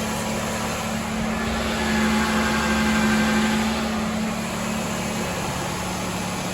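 A 2007 Chevy Malibu Maxx's 3.5-litre V6 idling steadily, with a slight swell in level a couple of seconds in.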